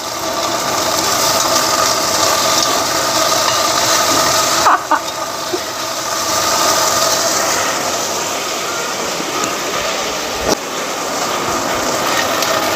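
Lamb chunks sizzling as they brown in an enamelled pot, with a steady mechanical hum underneath. Metal tongs clack against the pot about five seconds in and again near ten seconds.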